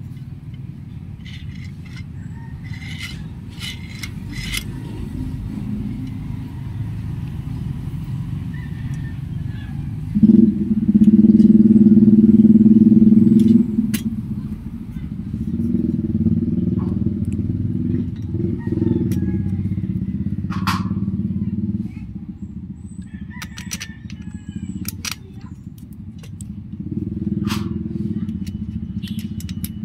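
A motor vehicle engine running steadily, much louder for a few seconds about ten seconds in and again in shorter stretches later. Scattered light metallic clicks and taps of the steel dish-mount brackets, nuts and washers being handled.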